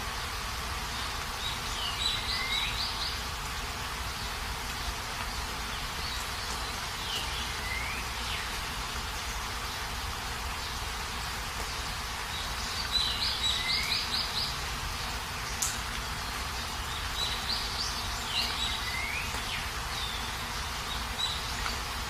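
Steady heavy rain, with a bird calling over it: a short phrase of quick high chirps ending in a falling note, repeated four times about every five seconds.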